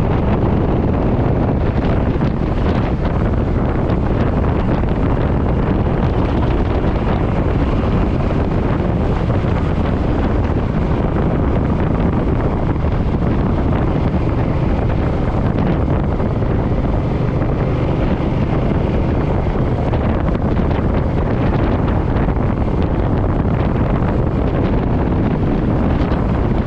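Steady wind rushing over the microphone on a moving motorcycle, with the Suzuki M50's V-twin engine and road noise running underneath at a constant speed.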